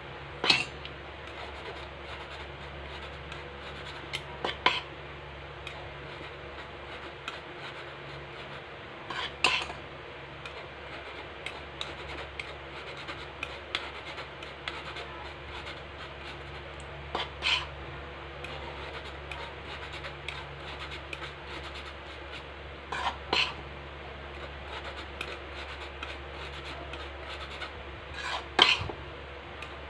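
Flour being rubbed by hand through a fine stainless-steel mesh sieve over a stainless-steel mixing bowl, giving a steady soft rasping. Every few seconds the sieve gives a sharp metallic clink as it knocks against the bowl, about seven times in all at uneven intervals.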